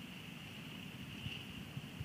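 Rain and wind on an outdoor camera's microphone: irregular soft low thumps over a steady high-pitched hiss.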